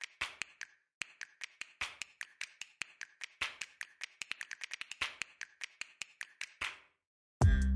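A quick, irregular run of sharp clicks and taps that stops about seven seconds in; after a moment of silence, loud electronic music with heavy bass cuts in at the very end.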